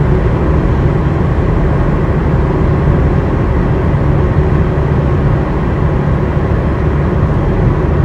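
Steady low road and engine noise heard inside the cabin of a moving car.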